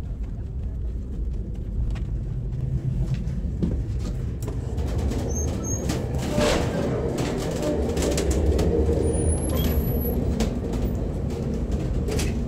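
Passenger train rolling on the rails, heard from inside a car: a steady low rumble with scattered clicks and rattles.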